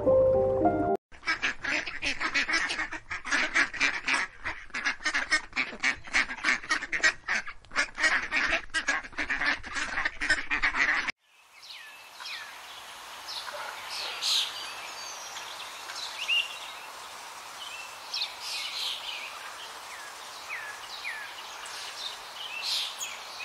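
A flock of waterfowl calling together in a dense, continuous clamour that cuts off suddenly about eleven seconds in. After it come scattered small-bird chirps over a faint steady hiss.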